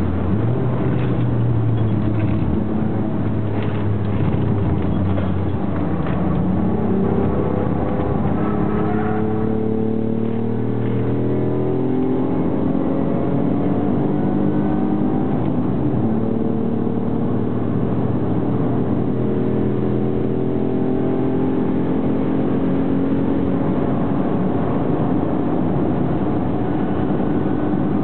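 Ford Mondeo ST's 2.5-litre V6, with short headers, pod filter and a full 2.5-inch exhaust, accelerating hard on track, heard from inside the cabin. Its pitch holds fairly level at first, then climbs in long rising sweeps, falling back between them and climbing again as the car pulls through the gears.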